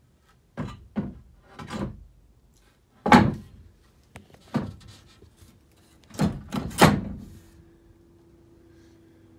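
Knocks and thumps on the wooden 2x4 beams of a van platform bed frame, about eight of them at uneven intervals, the loudest about three seconds in and near the end. The frame is being tested for sturdiness and holds solid.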